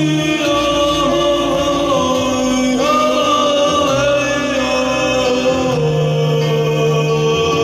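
Live song: a man singing long, drawn-out notes over sustained keyboard chords and held bass notes.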